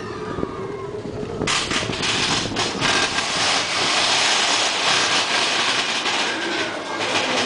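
Roller coaster train clattering along its track. About a second and a half in, a loud, steady rush and rattle of the cars at speed sets in.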